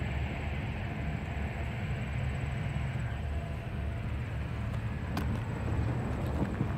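Steady low rumble of a distant diesel-hauled passenger train approaching down the line, with a couple of faint clicks near the end.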